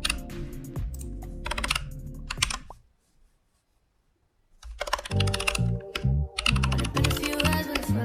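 Rapid typing on a computer keyboard over background music. Both stop about three seconds in, leaving near silence for about two seconds, then the music and the typing start up again.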